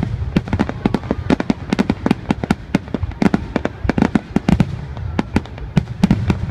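Aerial firework shells bursting in a dense, irregular barrage of sharp bangs, several a second, over a continuous low rumble.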